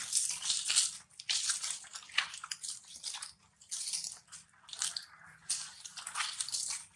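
Dry fallen leaves crunching and rustling underfoot as monkeys walk through the leaf litter, in irregular bursts with short pauses.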